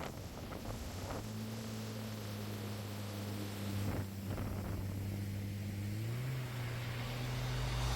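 A vehicle engine running steadily with a low hum; its pitch steps up about six seconds in, as if speeding up.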